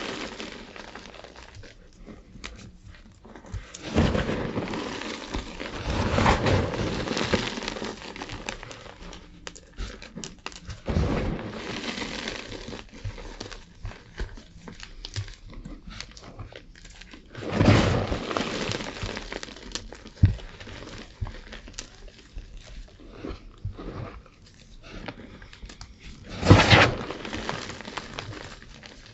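Gym chalk crunching and crumbling as it is crushed, an irregular run of crackles with louder surges of crunching about 4, 11, 17 and 26 seconds in.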